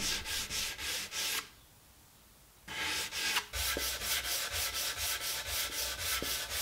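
Hand sanding a kauri table leg with 120-grit sandpaper on a sanding block: quick back-and-forth rasping strokes, about three a second. The strokes stop for about a second a little way in, then resume.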